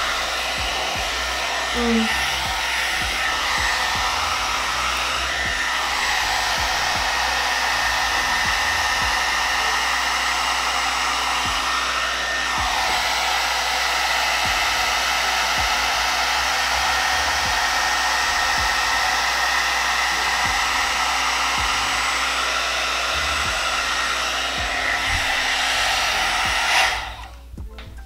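Amika blow dryer brush running steadily on its medium-heat, low-speed setting: a rush of air with a steady fan whine. It stops abruptly about a second before the end.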